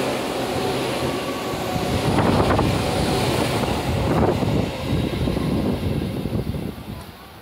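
Electric commuter train passing the platform at speed, close by: a steady rumble of wheels on rail with a rush of air. It swells about two seconds in, then fades away over the last couple of seconds.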